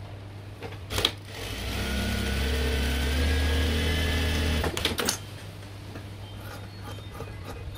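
Sewing machine running a seam for about three and a half seconds, building up speed at the start, then stopping. A click comes just before it starts and a few clicks come as it stops.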